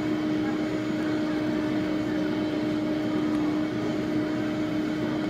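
A machine motor running steadily, a constant-pitched hum over a whooshing noise.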